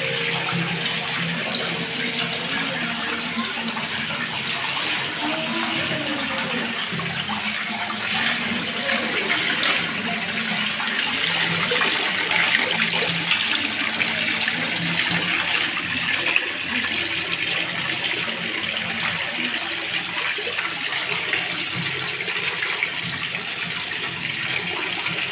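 Steady rush of water running and splashing into a fish pond.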